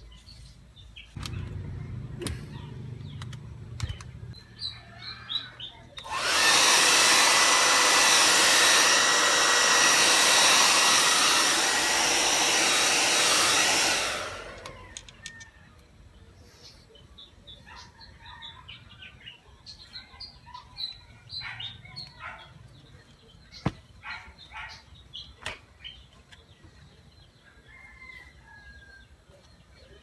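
Handheld hair dryer switched on about six seconds in and running steadily for about eight seconds, then fading as it is switched off. Before and after it there are light taps and handling sounds on the work table and a few faint bird chirps.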